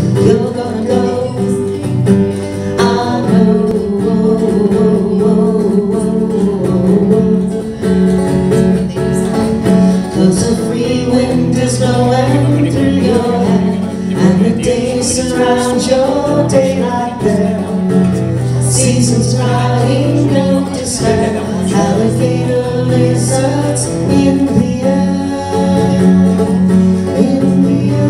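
Live acoustic country-folk trio: acoustic guitar strummed over a bass guitar's steady low notes, with a woman singing.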